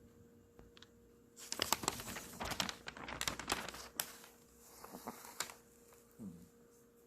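Newspaper rustling and crinkling for about three seconds, then a few softer rustles. Near the end there is one brief low snore from the dog sleeping under it.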